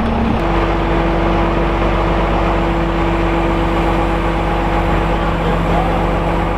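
Engine of heavy equipment running steadily; about half a second in it steps up to a higher, steady pitch and holds there.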